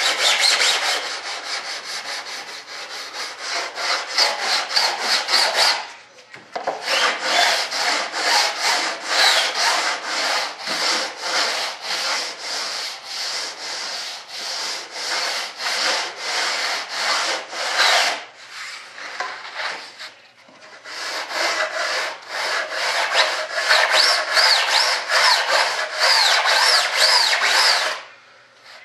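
Sandpaper on a long hand sanding block rubbed in quick back-and-forth strokes, about three to four a second, along the wooden edge of a model aircraft elevator. There are brief pauses about six seconds in, around eighteen to twenty seconds in, and near the end.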